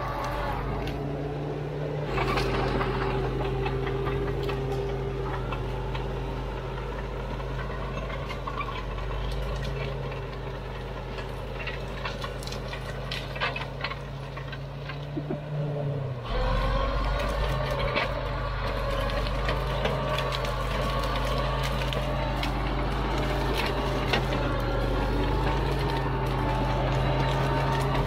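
Caterpillar D4 7U bulldozer's four-cylinder diesel engine running hard while the dozer works through brush, with many scattered sharp cracks and clicks. The engine note shifts about two seconds in and grows louder about sixteen seconds in.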